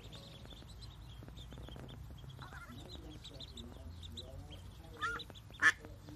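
Mallard ducklings peeping: a constant chorus of short, high peeps, with soft low calls from the hen in the middle. Near the end come two louder, closer peeps, the second sharp and the loudest.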